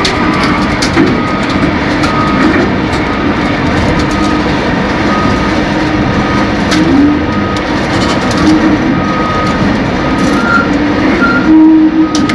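Heavy machinery running steadily, with short metallic squeals that come and go and scattered clicks.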